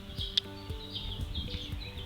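Small birds chirping in quick, repeated short calls over soft background music with held low notes.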